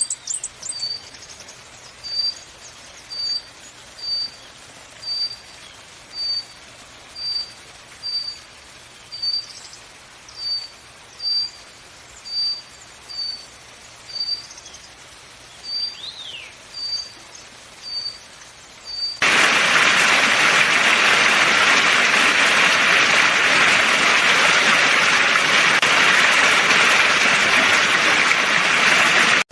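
A bird repeats a single short high note about once a second, with a few brief chirps among them. About two-thirds of the way through, a loud, steady hiss cuts in suddenly and drowns it out.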